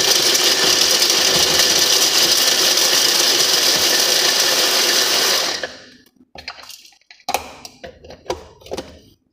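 Electric hand blender with a chopper bowl attachment running steadily, grinding nuts, then switching off about five and a half seconds in. A few scattered knocks and clatters follow.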